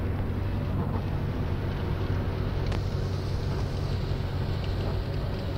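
Steady engine and road noise inside a moving car's cabin, with a faint click a little under three seconds in.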